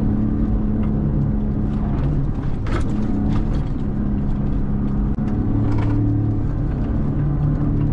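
A 2017 Ford Raptor's twin-turbo V6 engine running under load, heard from inside the cab, its note shifting a couple of times. A few short knocks come through from the truck on rough ground.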